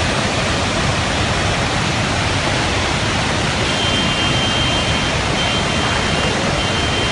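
Floodwater pouring through a breached dam: a loud, steady rush of water with no let-up.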